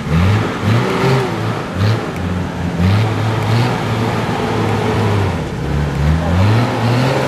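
Off-road 4x4's engine revving in repeated short throttle blips, pitch rising and falling, as it crawls over rocks in a steep rutted gully, with a longer rise in revs near the end.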